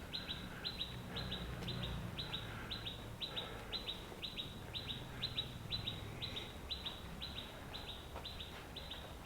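A small bird repeating a short high chirp over and over at an even pace, about three a second, over a faint low hum.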